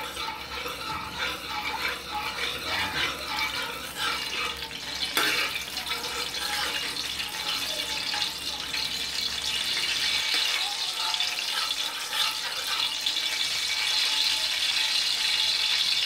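Cooking oil heating in an aluminium wok, crackling and sizzling, with a metal spoon clinking and scraping against the pan in the first half. The sizzle grows steadily louder toward the end as the oil gets hot.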